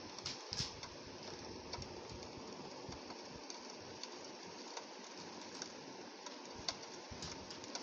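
Steady rain on window glass, a continuous hiss with scattered drops ticking against the pane, a few louder ticks about half a second in and again near the end.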